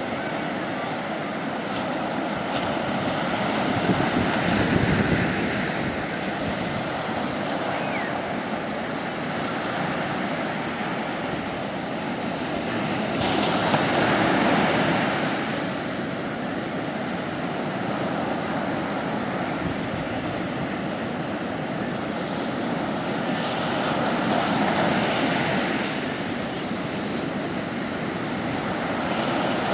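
Sea waves breaking on a beach, the surf swelling louder about every ten seconds with a steady wash in between.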